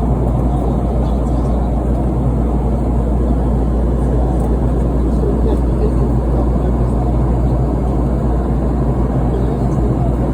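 Steady cabin noise of a Boeing 717-200 airliner in flight: the low, even drone of its rear-mounted Rolls-Royce BR715 turbofans and the airflow over the fuselage, heard from inside the cabin.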